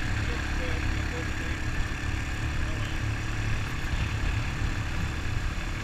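Honda ATV engine running steadily under way, a continuous low rumble with road and rushing noise over it.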